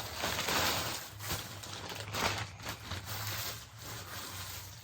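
Plastic packaging rustling and crinkling as a wrapped bag is handled, in uneven swells, over a steady low electrical hum.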